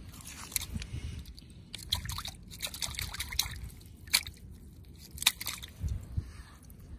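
Seawater sloshing and dripping in a plastic bucket as it is handled, with scattered sharp clicks and knocks, the sharpest about four and five seconds in.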